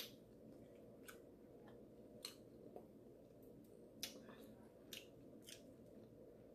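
Near silence with faint, scattered clicks and crackles of crab shells being picked apart by hand.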